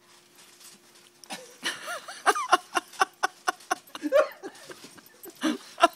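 Hearty laughter in quick bursts, about four a second, starting about a second and a half in.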